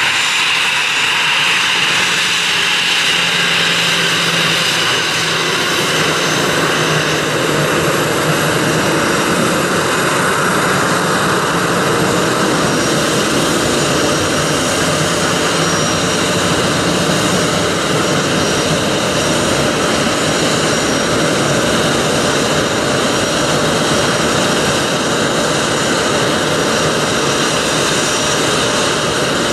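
Airbus A321 jet engines running on the runway as the airliner turns and lines up. A falling whine comes at the start, and a fuller rushing engine noise builds after several seconds.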